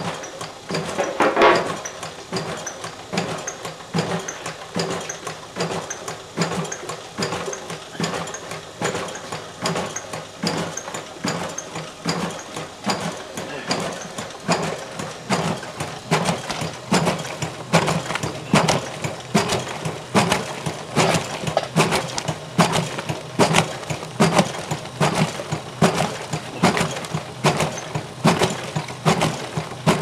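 1932–33 Easy washing machine running, its three stainless-steel plunger cups pumping up and down in soapy water while the agitator turns a notch each stroke. The mechanism gives a steady, rhythmic clatter.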